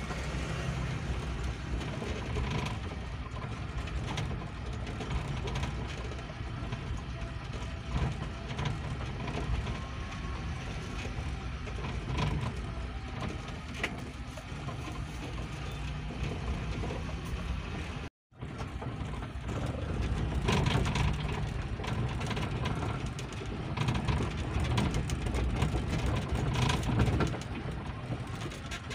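Cab noise of a Suzuki Futura pickup driving slowly over a potholed field road: the engine runs under a low rumble while the body and load rattle and knock over the bumps. The sound cuts out for an instant about two-thirds of the way through.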